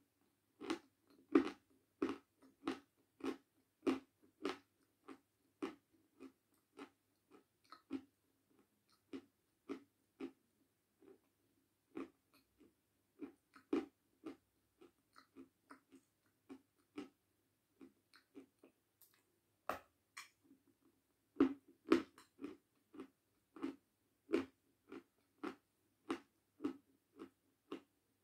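A person chewing something hard and brittle close to the microphone, with a steady run of sharp crunches about one to two a second.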